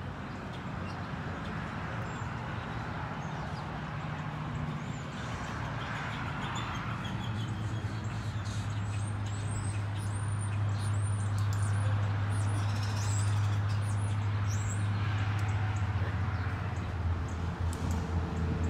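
Outdoor ambience: birds chirping in short high calls over a steady low mechanical hum that grows louder about halfway through.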